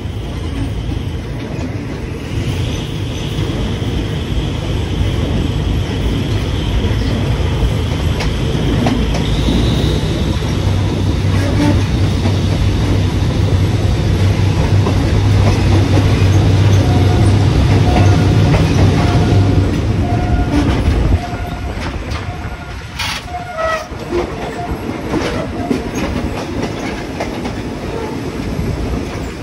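Old passenger coach of the State Railway of Thailand running along the track, heard from the coach's open side: a steady rumble of wheels on rail with scattered clicks, the low rumble growing louder until about 21 seconds in, then dropping off sharply.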